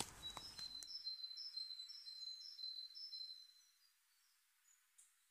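Faint birdsong: short, high, chirping phrases of small woodland birds, fading out after about three seconds into near silence. In the first second the rustle of footsteps on the woodland floor fades away.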